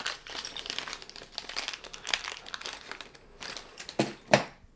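Plastic packaging crinkling and rustling as it is handled and rummaged through, with two louder knocks about four seconds in.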